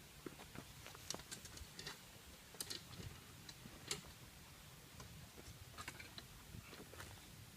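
Faint, irregular clicks and crackles from a coal fire burning in a brick melting furnace, with a faint low rumble underneath.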